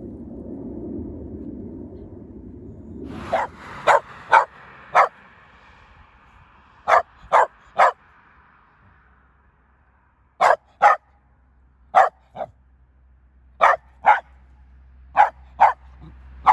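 Small white dog barking: short sharp barks in runs of two to four, about fifteen in all, starting about three seconds in. Before the barking a low rumble fades out.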